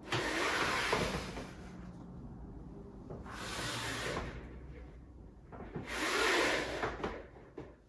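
Cordless cellular shade being pushed up and pulled down by hand by its bottom rail: three swishing, rustling sweeps of the pleated fabric folding and sliding as the spring lift runs.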